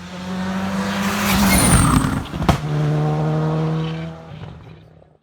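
A rally car passing at speed: its engine note builds as it approaches, a sharp crack sounds about two and a half seconds in, and then the engine runs on at a lower pitch and fades away.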